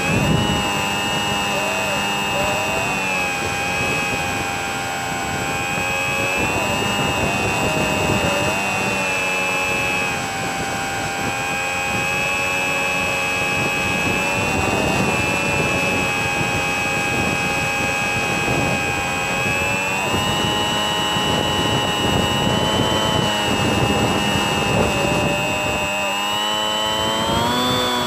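Bixler 3 RC plane's brushless electric motor and pusher propeller whining steadily in flight, with air rushing past the onboard microphone. The pitch wavers slightly and then climbs near the end as the throttle opens.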